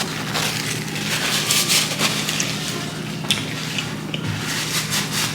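Close-up eating and handling of seafood: a run of small crackles, clicks and wet squishes from shells and food being worked by hand, over a faint steady low hum.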